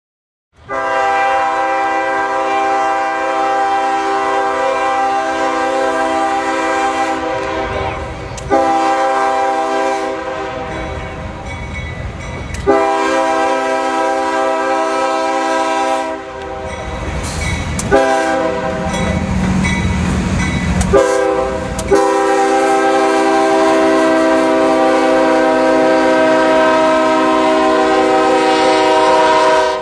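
CSX freight locomotive's air horn sounding a series of blasts: three long ones, then two shorter ones about 18 s and 21 s in, then a final long one held as the locomotive passes close by. Beneath the horn, the rumble of the locomotive and double-stack cars builds in the second half.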